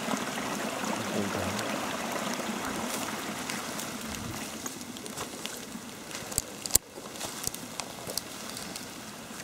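Water running unseen below ground, heard at the mouth of a hole: a steady rushing that eases a little, with a few sharp clicks about two-thirds of the way through.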